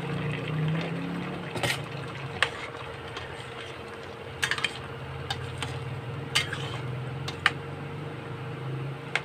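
A slotted spatula stirring potato and carrot chunks through a saucy chicken liver and gizzard adobo in a stainless steel pot: wet stirring with about seven sharp knocks of the utensil against the pot. A steady low hum runs underneath.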